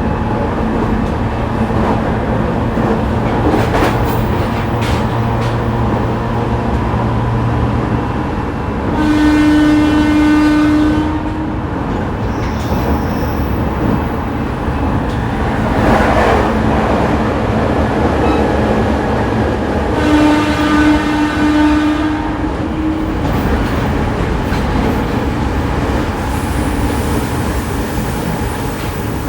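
E501 series electric train running at speed, heard from inside a motor car: steady motor hum, wheel and rail rumble and the clatter of the track. A train horn sounds twice, about two seconds each time and some ten seconds apart, with a brief rush of noise between the two.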